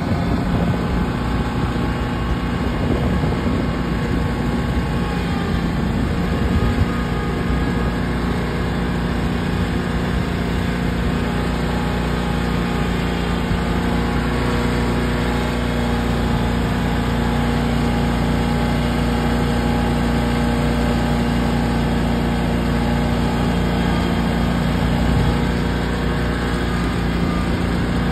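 Small engine idling steadily, an unchanging hum.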